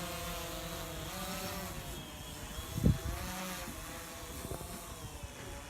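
DJI Phantom 2 quadcopter's motors and propellers humming steadily in flight, the pitch wavering slightly as the motor speeds shift. A short thump comes about three seconds in.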